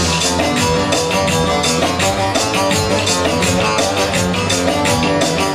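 Live Turkish folk dance music: bağlama (saz) and electronic keyboard playing an instrumental passage between sung verses, over a steady beat.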